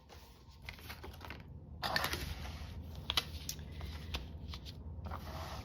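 Paper and small craft tools being handled on a desk: rustling with scattered light clicks and taps.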